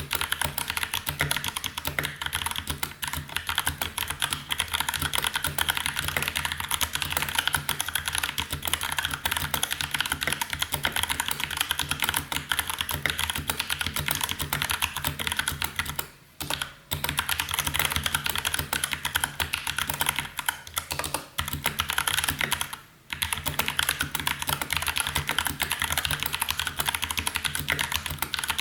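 Fast, continuous typing on a Velocifire TKL02 tenkeyless mechanical keyboard with Outemu Brown switches: a dense run of key clacks, broken by two brief pauses, a little past halfway and about four-fifths through.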